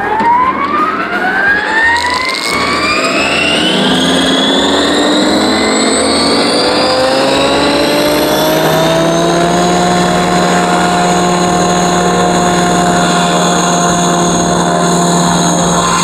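Electric size-600 RC scale helicopter (AS350) spooling up. The motor and rotor whine rises in pitch over about the first ten seconds, then holds steady at hovering head speed.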